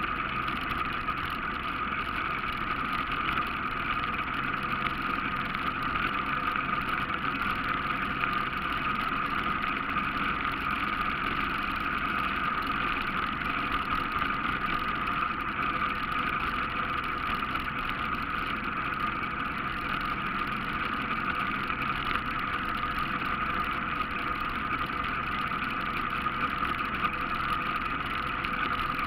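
ATV engine running at a steady pace while riding along a trail, an even drone with no changes in speed.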